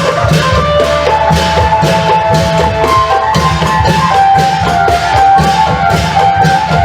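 Isan klong yao long-drum ensemble playing a steady, driving rhythm, with a stepping melody on the phin lute over the drums.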